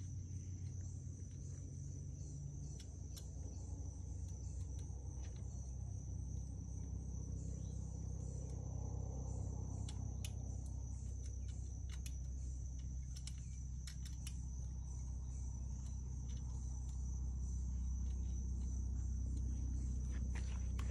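Insects outdoors keeping up a steady, high-pitched trill. Under it is a low rumble, with scattered faint clicks of bike parts being handled.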